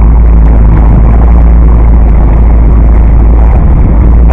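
Small fishing boat's engine running steadily while trolling, very loud and close to the microphone, with a heavy low rumble.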